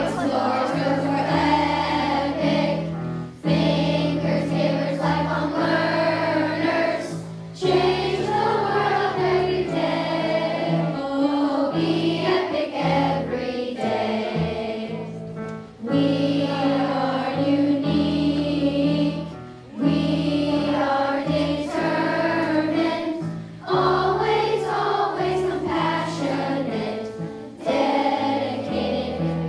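A large group of schoolchildren singing a song together in chorus, led by one voice on a microphone, over a musical accompaniment with sustained low notes. The singing comes in phrases with short breaks between them.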